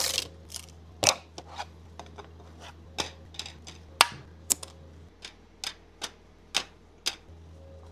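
3D-printed plastic parts being popped off a printer's build plate and handled: a string of irregular sharp clicks and clacks, roughly two a second, over a steady low hum.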